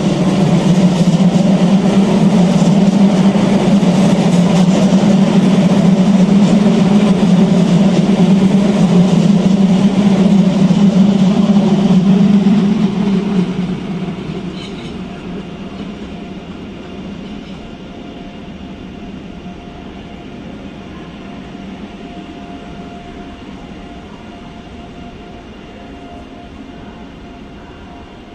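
Red S-Bahn electric multiple unit passing close along the platform, loud rolling and motor noise with a low hum. About 13 seconds in it drops off quickly and keeps fading as the train pulls away.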